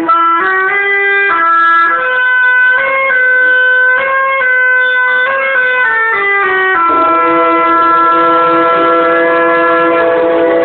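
An instrumental quintet playing a slow passage of sustained chords that change every second or so, settling on one long held chord about seven seconds in.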